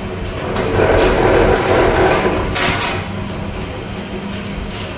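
Electric wire stripping machine running with a steady hum, and for about two seconds a louder rasping as a 3-core appliance cable is pulled through its cutters and stripped of its PVC insulation.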